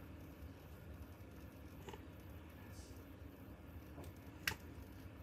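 Small parts of a Hexbug drone kit being handled during assembly: a faint click about two seconds in and a sharper click near the end, over a low steady hum.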